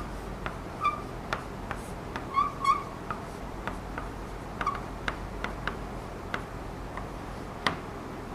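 Chalk writing on a blackboard: irregular taps and scratches of the chalk, with a few short high squeaks, mostly in the first three seconds.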